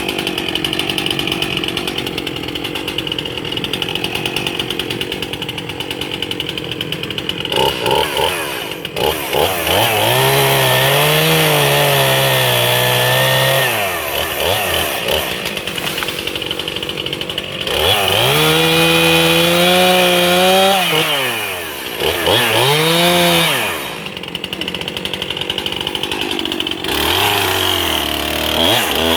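Freshly sharpened gas chainsaw running at a steady low speed, then revved up four times to cut into the log, its pitch rising, holding and dropping back with each cut.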